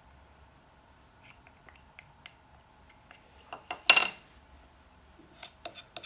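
Light metallic clinks and taps of a thin steel rod against the steel pins and tang of a meat cleaver lying on a wooden workbench. A few scattered ticks, a loudest cluster of clinks about four seconds in, then several sharp clicks near the end.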